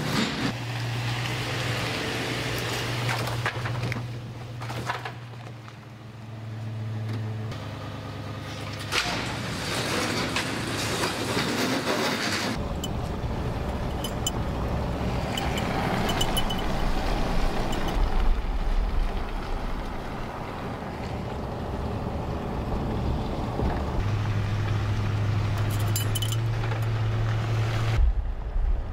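A sectional garage door rolling up, then a pickup truck driving, with engine hum and road rumble. The sound changes abruptly several times, with cuts between shots.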